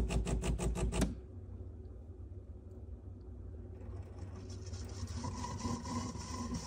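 De'Longhi Eletta Explore superautomatic espresso machine running its pump with a rapid, even pulsing of about five beats a second, which cuts off about a second in. A low hum follows, then from about four seconds in a hiss builds with a faint steady tone as the machine starts on the milk.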